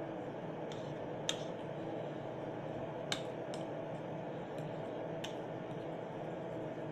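A hand squishing and kneading a thick shredded-chicken dip mixture in a bowl, with a few short, sharp wet clicks, over a steady low background hum.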